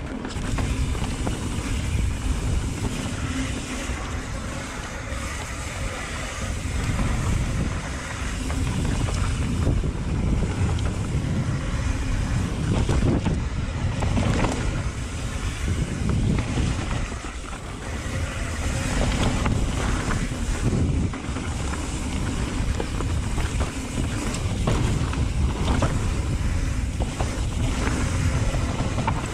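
Wind buffeting the microphone of a mountain bike rider's camera while descending a dirt singletrack, over the rumble of knobby tyres rolling on dirt and rock. Occasional knocks and rattles come from the bike over rough ground.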